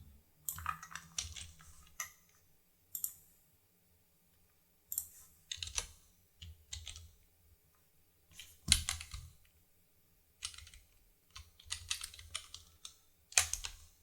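Typing on a computer keyboard: short runs of keystrokes with pauses of a second or more between them, a louder group of strikes about nine seconds in.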